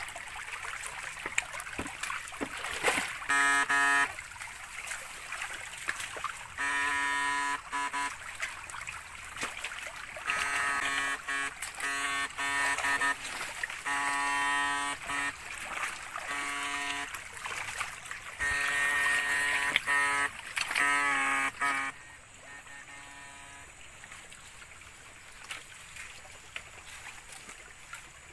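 Electrofishing rig buzzing with a steady, fixed-pitch tone in about a dozen short on-off bursts as the current is switched on and off, stopping about 22 seconds in. A shallow stream trickles and splashes underneath.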